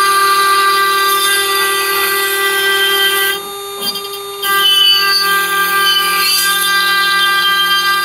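CNC router spindle whining steadily as its bit mills a tenon into a wooden block, with the hiss of the cut over the whine. About three and a half seconds in, the sound drops for about a second, then picks up again.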